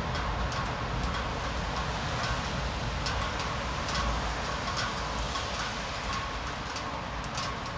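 Steady heavy rain, with many sharp drops tapping on a nearby surface.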